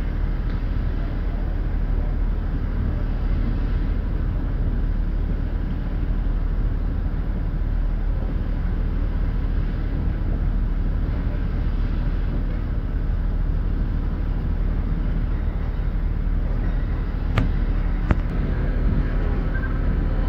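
Steady low rumble of railway platform ambience, with two sharp clicks a little under a second apart near the end.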